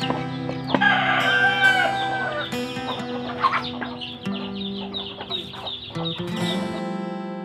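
A chicken clucking loudly in a broken run of calls from about one to two and a half seconds in, with a shorter call about a second later, over acoustic guitar music.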